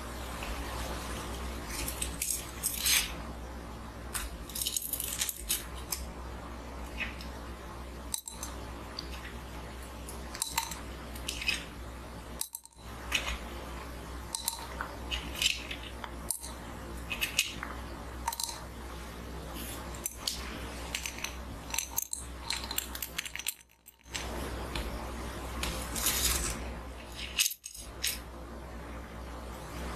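Close-up handling of a traditional Chinese medicine steelyard scale: dried herb slices and a small glass bottle set on its brass pan, with light metallic clinks and chain rattles scattered throughout, over a steady low hum.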